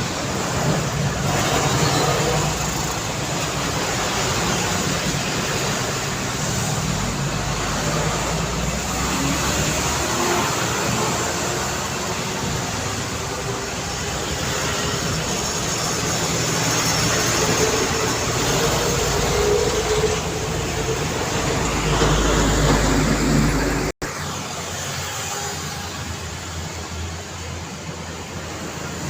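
Busy city road traffic: engines and tyres of passing vehicles, heavy trucks among them. Engine notes rise and fall as vehicles pass, a deep rumble builds about three quarters of the way through, then it cuts out for an instant and the traffic continues somewhat quieter.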